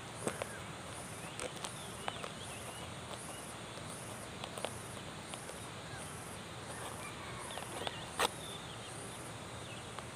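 Scattered sharp cracks and rustles as a durian's spiky husk is pried apart by hand, the sharpest crack about eight seconds in, over an insect's high-pitched pulsing chirp about once a second.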